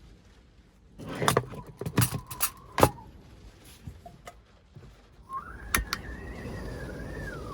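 A few sharp knocks and clatters, then a gust of storm wind whistling around a parked kei van: a whistle that rises, holds and falls over about two seconds, over a rush of wind and rain noise.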